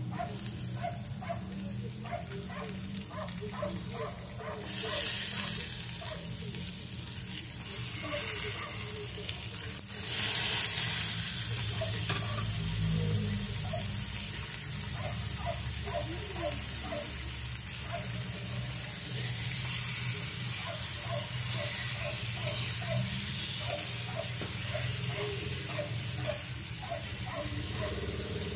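Shrimp sizzling as they are dropped into hot butter with onions and garlic and stirred in the pan, the sizzle flaring loudly a few times, most strongly about ten seconds in. Short pitched calls repeat a few times a second in the background.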